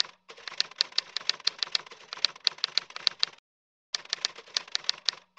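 Typing sound effect: rapid key clicks, about four or five a second, in two runs broken by a short cut to dead silence just past the middle.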